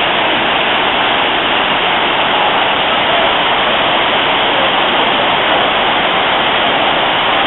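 Waterfall cascading over rock terraces close by, a loud, steady rush of water.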